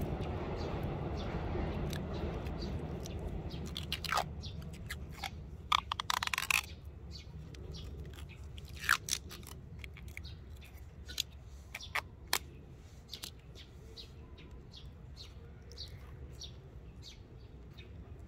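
Grafting tape being stretched and wound tightly around a fresh graft on a fruit-tree branch: a scatter of small clicks and crackles, with a short burst of rasping about six seconds in.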